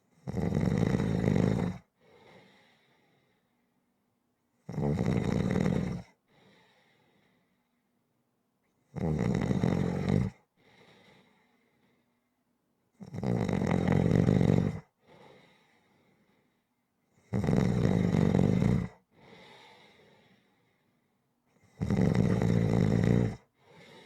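Rhythmic snoring: six loud snores, each about a second and a half long and a little over four seconds apart, each followed by a faint, shorter breath sound.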